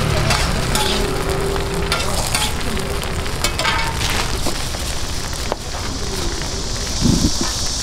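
Toast and egg frying on a street-stall griddle: a steady sizzle, with a few short sharp clicks scattered through it.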